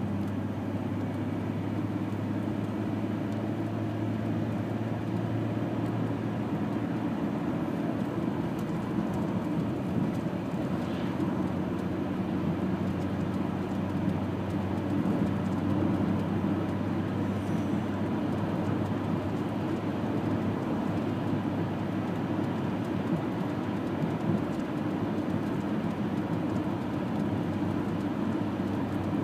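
Car driving at steady speed on an open road, heard from inside: a continuous drone of engine and tyre-on-road noise. A low engine hum in it drops away about seven seconds in.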